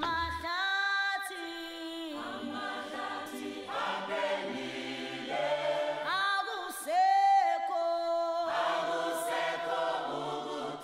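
A small choir singing a cappella: several voices holding notes together in harmony, with no instruments.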